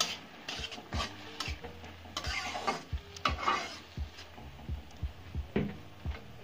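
A spatula stirring and scraping chopped onion, capsicum and tomato around a kadhai as they fry, with a sizzling hiss and sharp taps of the spatula against the pan about once or twice a second. A longer run of scraping comes about two seconds in.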